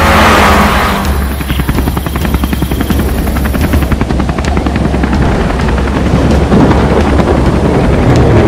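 A short whoosh, then a helicopter's rotor chopping rapidly and steadily over a low hum: a cartoon sound effect.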